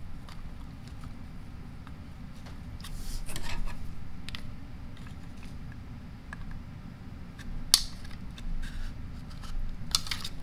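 Light handling sounds of a valve being worked into an air impact wrench handle: faint scrapes and small clicks of parts against the housing, a louder rustle about three seconds in and sharp clicks near the end, over a low steady hum.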